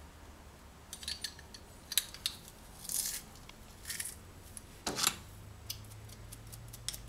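Metal garlic press being loaded with a clove and squeezed, its hinged handles clicking and clacking, with short sharp metallic clicks about once a second.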